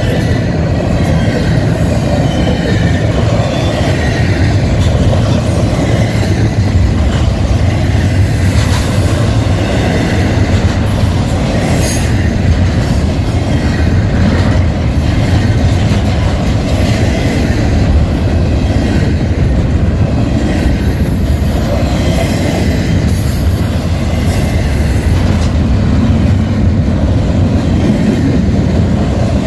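Freight train of double-stack container cars rolling past: a loud, steady rumble of steel wheels on the rails, with a few brief high-pitched wheel squeals around the middle and later on.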